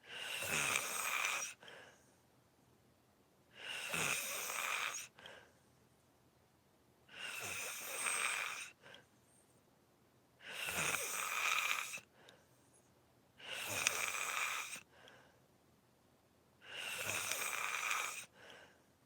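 A person snoring in sleep: six loud snores at a slow, regular pace, about every three and a half seconds, each followed by a brief, fainter breath sound.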